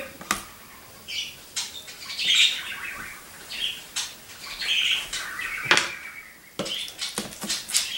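Scattered clicks and knocks of kitchen utensils being handled, with faint high chirp-like sounds in between.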